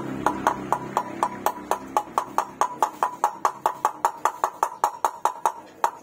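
A hammer tapping a new NSK 6300 ball bearing into the hub of a motorcycle mag wheel: light, quick, even metal-on-metal taps, about five a second, each with a short ring, as the bearing is started into its seat.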